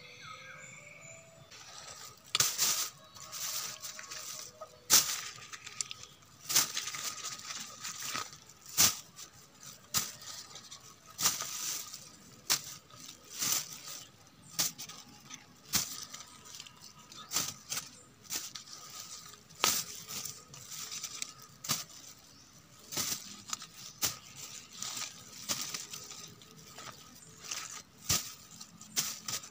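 Thin plastic bag crinkling and rustling in a hand while small round katmon fruits are picked up and dropped into it, making irregular sharp crackles and soft knocks that start about two seconds in.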